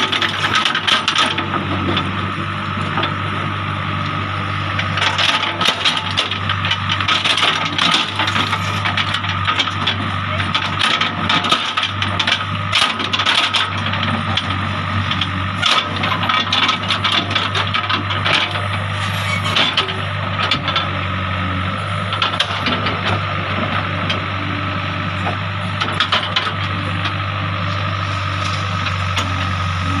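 JCB 3DX backhoe loader's diesel engine running steadily while its bucket scrapes and scoops soil in a pit, with frequent sharp clatter and cracking from stones and clods knocking against the steel bucket.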